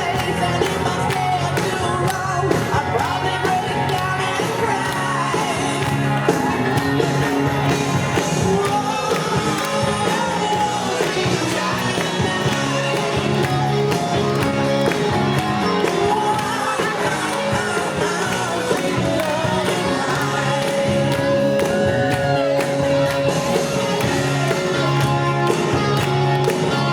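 Rock music with singing, a full band playing steadily.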